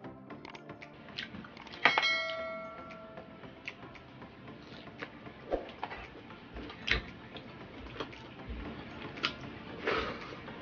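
Close-up eating sounds from a person eating barbecue pork ribs by hand: irregular wet mouth clicks and lip-smacks while chewing. About two seconds in, a dish gives a sharp, ringing clink.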